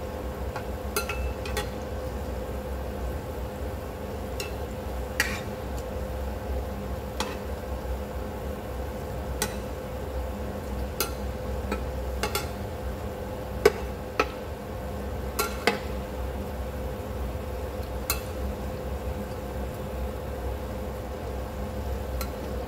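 Sweet potato balls deep-frying in oil with a steady sizzle, over a faint steady hum. A metal spatula stirring and pressing them gives a sharp click against the pan every second or two, at uneven intervals.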